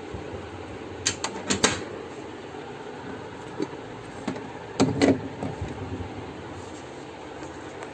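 Plastic clicks and clacks from a Brother DCP-L2541DW laser printer being closed up after its drum and toner unit are refitted: a quick cluster of sharp clicks about a second in and a louder one about five seconds in, over a steady background hum.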